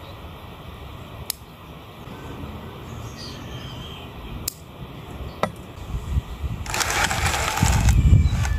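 Pruning scissors snipping small twigs off a Loa fig bonsai: three sharp clicks, spaced a few seconds apart, over a low rumble. Near the end comes about a second and a half of loud rustling and handling noise.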